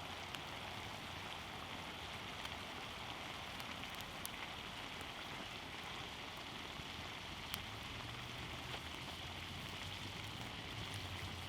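Ground beef sizzling in a pan over a high campfire flame: a steady frying hiss, with a few sharp crackles and pops from the burning wood.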